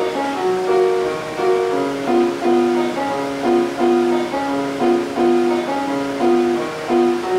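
Instrumental background music: a slow melody of held notes, a few to the second.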